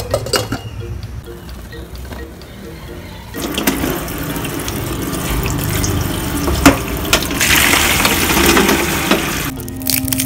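Tap water running onto boiled eggs in a stainless steel colander, a steady splashing that starts about three seconds in and stops shortly before the end, with a few sharp knocks along the way.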